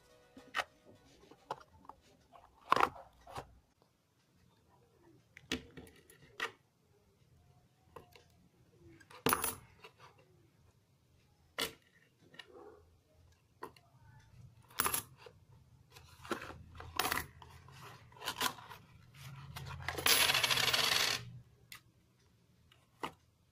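Coins dropped one at a time into a cardboard-box piggy bank, a series of separate sharp clinks, then near the end a longer clatter of coins as they come out of the box onto the table.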